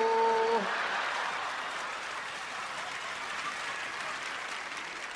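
Theatre audience applauding, fading away gradually.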